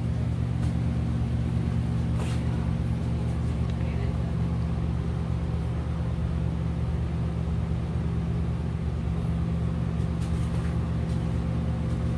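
A steady low machine hum, even and unchanging, with a few faint clicks.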